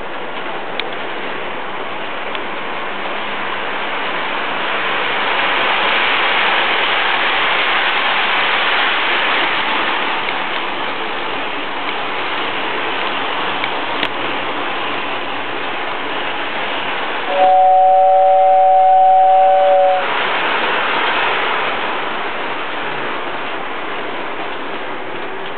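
Lionel toy train running on its three-rail track, a steady rolling rumble of wheels on rail that swells as it passes close. About two-thirds of the way through, the train's whistle sounds a steady two-note blast lasting about two and a half seconds.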